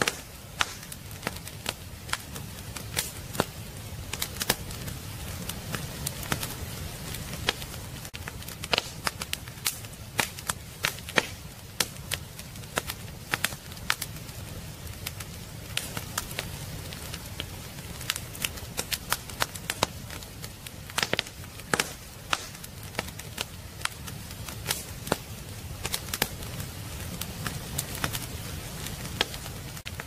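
Wood fire crackling in a fireplace: irregular sharp snaps and pops of burning firewood over a steady low rumble of the flames.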